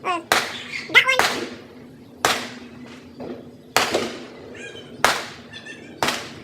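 Firecrackers going off in an irregular string of about eight sharp bangs over six seconds, each with a short echoing tail. A brief wavering squeal sounds in the first second.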